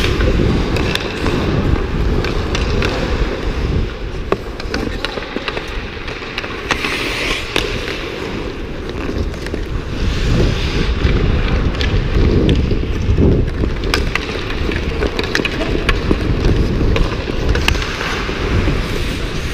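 Ice hockey skates scraping and carving on rink ice, heard through a GoPro worn by the skater, with a heavy low rumble of movement on the microphone. Sharp clacks of hockey sticks and puck land every so often.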